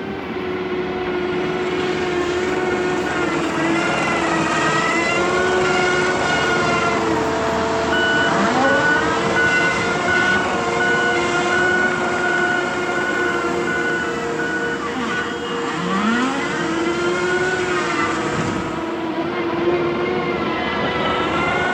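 Heavy machine's diesel engine working, its pitch repeatedly rising and falling as it revs under load. A run of steady beeps sounds from about 8 to 14 seconds in.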